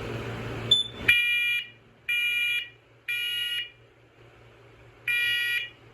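First Alert smoke alarm sounding in test mode with the temporal-three evacuation pattern: three loud beeps about a second apart, a pause, then three more. A steady hiss cuts off just before the first beep.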